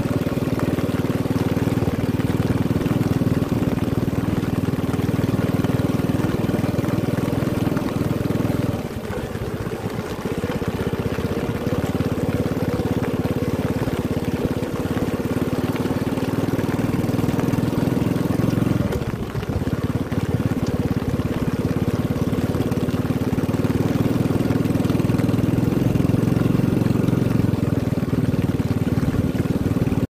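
Motorcycle engine running steadily under way, easing off briefly twice, about nine seconds and nineteen seconds in, then picking up again.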